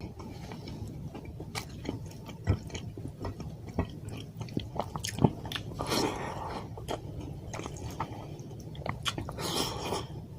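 A person chewing and eating fish curry with rice close to the microphone: irregular mouth clicks and smacks, with a couple of longer chewing bouts near the middle and the end.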